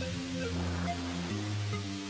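Background music: sustained bass and chord notes, changing to a new chord about two thirds of the way in.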